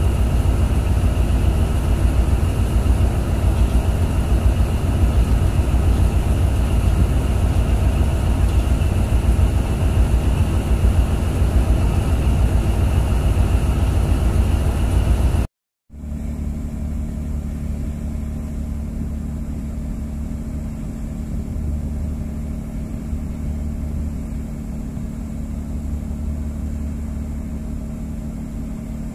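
Boat diesel engine running steadily under load while towing. About halfway through it cuts off for a moment and comes back quieter, with a steadier low hum.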